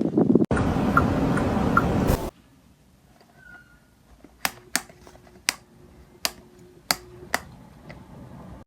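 Electric fan running with a steady rush of air that cuts off abruptly about two seconds in, followed by about seven sharp clicks spread over three seconds.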